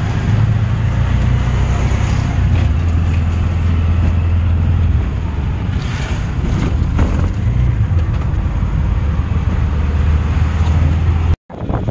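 Auto-rickshaw in motion: its engine running with a steady low drone under road noise and wind on the microphone. The sound cuts out abruptly for a moment near the end.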